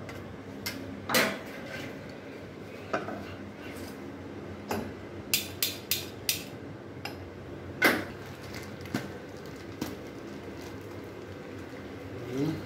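Pots, pans and utensils clinking and knocking in a kitchen: about a dozen separate metal knocks and clinks, the loudest about a second in and near eight seconds, with a quick run of four between five and six and a half seconds, over a steady low hum.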